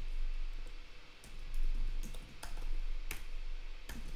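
Typing on a computer keyboard: a handful of irregularly spaced key clicks over a low steady hum.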